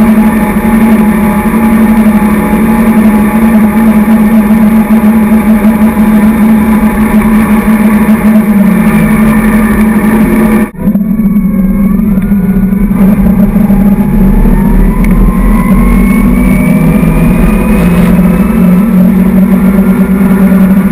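Tow boat's engine running steadily at barefoot-skiing speed, mixed with the rush of spray and wind. It cuts out briefly about eleven seconds in, and a few seconds later its pitch slowly rises.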